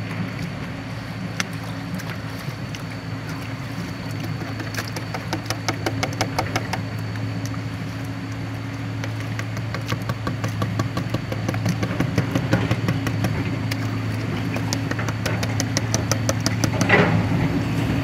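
A small engine running steadily at one pitch, with rapid ticking that comes and goes over the hum.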